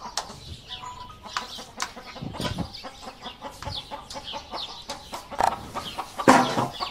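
Chickens clucking repeatedly, with one louder, longer call near the end.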